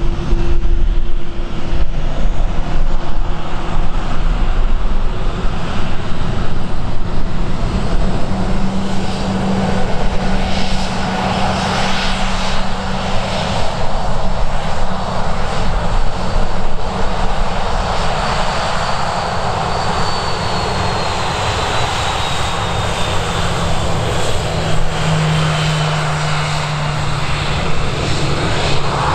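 Aircraft engines running steadily, with a thin high whine that slowly falls in pitch through the second half. Heavy, uneven wind rumble sits underneath on the microphone.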